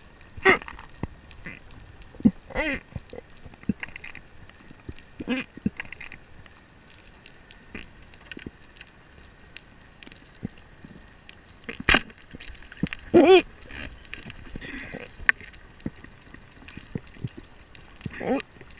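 Underwater sound heard through a camera housing. A speargun fires with a single sharp crack about twelve seconds in, the loudest sound. Around it are a few short pitched squeaks that slide up and down, and scattered soft clicks.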